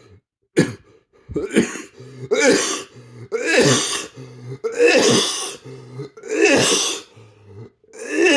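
A man coughing over and over, about six harsh, throaty coughs a second or so apart. It is a persistent cough that he has been told is apparently psychogenic (心因性咳嗽).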